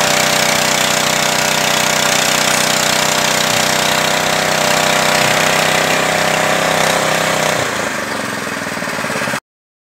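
Small petrol engine running at steady high speed, driving a fish-feed pellet machine as feed mash is pressed through it. The low part of the sound drops away about three-quarters of the way through, and then the sound cuts off suddenly.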